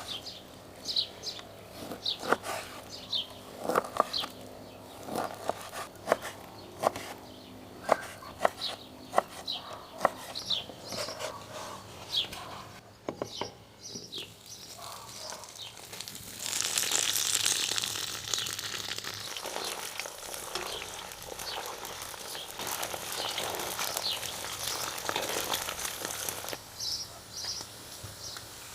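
Birds chirping over a series of irregular knocks and clicks. About halfway through, a loud steady hiss sets in and keeps going.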